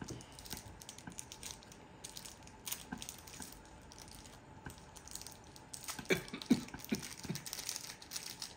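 Cellophane sleeve crinkling and rustling as it is slid off a cigar, with a cluster of sharper crackles about six to seven seconds in.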